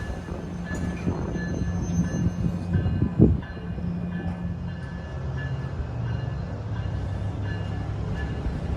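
NJ Transit commuter train led by an ALP-45 locomotive, running with a steady low hum, and a single loud thump about three seconds in.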